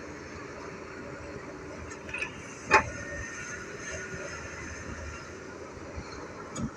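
Doosan DX140 excavator's diesel engine running steadily, with one sharp knock a little under three seconds in and a lighter knock near the end.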